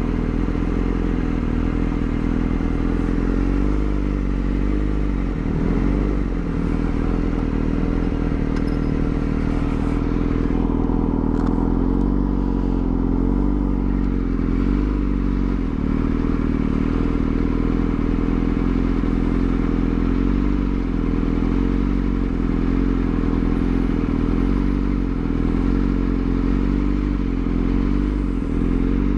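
Yamaha R6's inline-four engine running steadily while the bike is ridden, its pitch dipping and recovering slightly a few times with small throttle changes.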